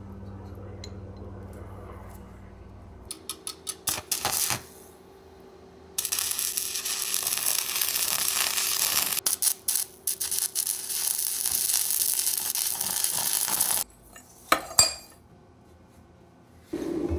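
Arc welding on a stack of leaf-spring steel plates: a few short sputtering strikes, then a steady crackling hiss for about eight seconds that cuts off abruptly. Two sharp metallic clinks follow.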